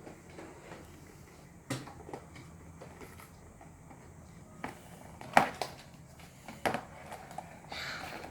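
A few scattered clicks and knocks, the loudest about five seconds in, from small plastic slime containers being handled and opened.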